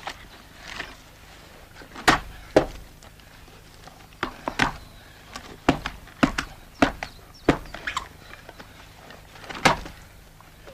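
A dozen or so sharp knocks and thumps at uneven intervals, the loudest ones a little after two seconds in and near the end.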